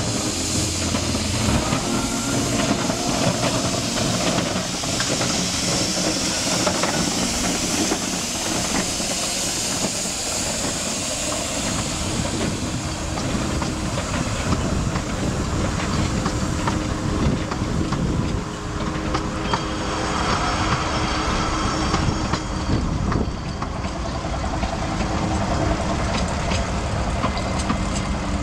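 A small 2 ft gauge steam locomotive working past with a train of passenger coaches: steam hissing from the engine, and the wheels clicking over the track as the coaches roll by.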